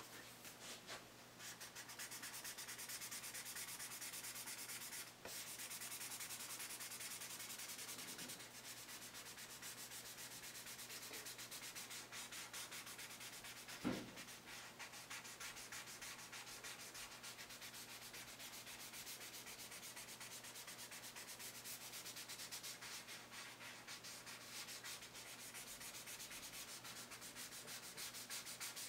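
Pencil scratching on sketchbook paper in rapid back-and-forth shading strokes, a continuous faint rasp. A single soft thump comes about halfway through.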